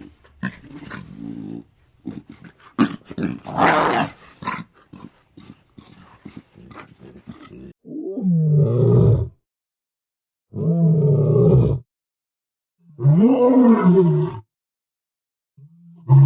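Lion vocalising: a rapid string of short, harsh calls for the first several seconds, then three drawn-out roars of about a second and a half each, rising and falling in pitch, with pauses between them, and a brief call near the end.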